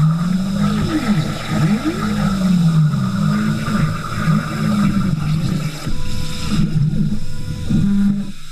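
CNC plasma cutter cutting 5/16-inch steel plate: a steady hiss from the plasma arc, with the machine's drive motors whining in pitches that glide up and down and cross each other as the torch traces a circle. The cut stops near the end.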